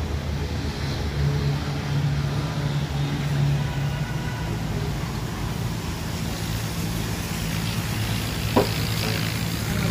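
An engine running steadily with a low, even hum, and a single short sharp click about eight and a half seconds in.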